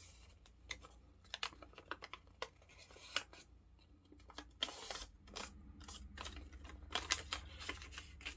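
A sheet of origami paper being folded and creased by hand: faint scattered crackles and rustles, with a longer rustle about five seconds in and a few sharper crackles near the end.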